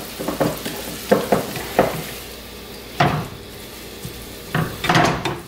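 Spatula scraping and tossing shredded vegetables in a hot frying pan, over a steady sizzle. The strokes come in irregular clusters, with a sharper one about three seconds in and a quick run of them near the end.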